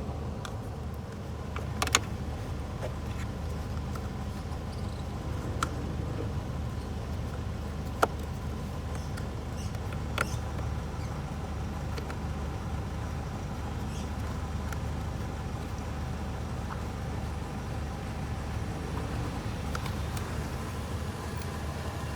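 Steady low mechanical hum with a few scattered sharp clicks and knocks.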